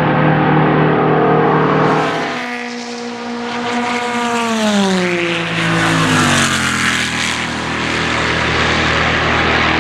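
6.5-litre Chevrolet V8 of a Spice Group C prototype race car running at speed, its note dropping steadily in pitch over a few seconds about a third of the way in, then settling on a steady lower note.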